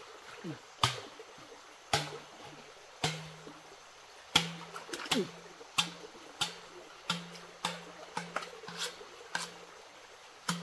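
Irregular sharp splashes and slaps of water in a shallow stream, one every half second to a second. From about two seconds in, a low hum comes and goes underneath in short stretches.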